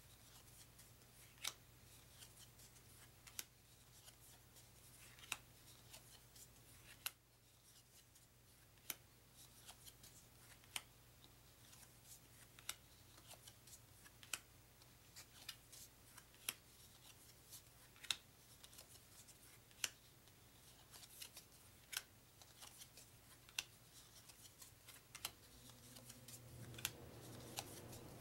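UNO playing cards being turned over one at a time onto a pile on a wooden table, a short snap of card on card about every one and a half to two seconds.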